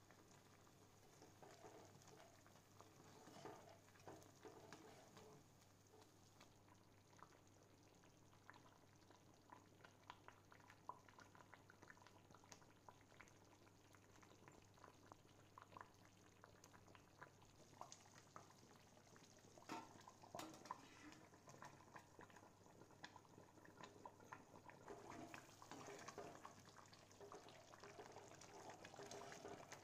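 Faint bubbling and popping of a thick tomato pickle gravy simmering in a cast-iron pan, many small irregular pops. The pops grow denser and louder for a moment about two-thirds of the way through and again near the end.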